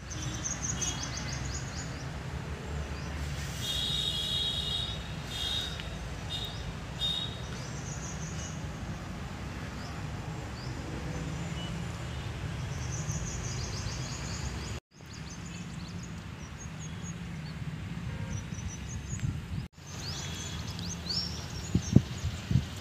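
Birds chirping and trilling in short repeated calls over a steady low rumble of outdoor ambience, with a few sharp knocks near the end.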